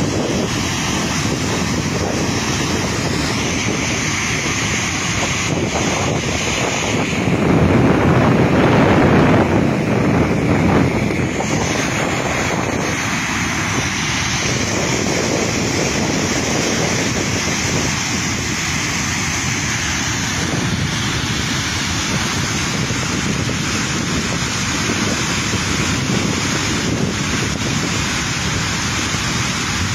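Muddy floodwater pouring over a full dam's concrete spillway and crashing into the spray below: a steady, loud rush of water. It swells for a few seconds about a quarter of the way in. The reservoir is full to the brim after heavy rain and overflowing.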